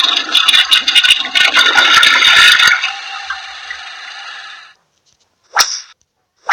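Sound effects played from a phone sound-effects app. A loud crackling, rushing effect, the end of a toilet-flush sound, cuts off sharply about two and a half seconds in and leaves a fading hiss. Near the end come two sharp whip-crack effects.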